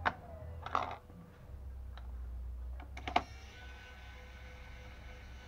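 A few sharp clicks and a short rattle of small hard parts being handled, over a low steady hum that comes in about a second and a half in.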